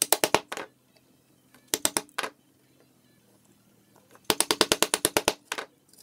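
Rapid sharp taps of a steel chisel chopping into a walnut board to cut out a small rectangular opening, in three quick bursts, the last and longest about a dozen strikes.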